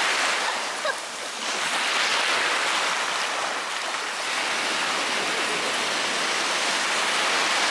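Small ocean waves washing up and running back in the shallows: a steady rush of surf that swells and eases every second or two.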